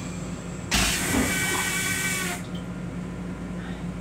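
A burst of pressurised air hisses, starting suddenly about a second in and lasting about a second and a half, over the steady low hum of an M7 railcar.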